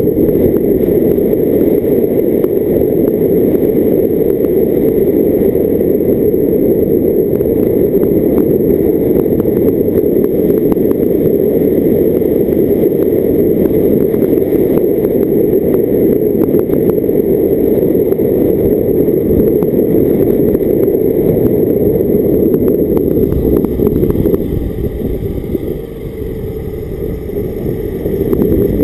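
Car driving with a steady rumble of engine, tyre and wind noise on a bonnet-mounted camera's microphone. The rumble drops for a few seconds near the end, then returns.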